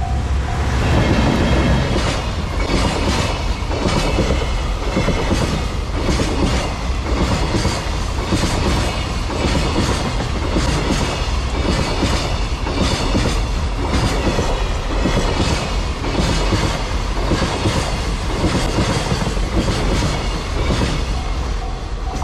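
A Fukuyama Rail Express container freight train, hauled by an EF210 electric locomotive, passing over a level crossing. Its wheels rumble and clatter steadily over the rail joints. The crossing's pulsing warning bell is drowned out about a second in and heard again near the end.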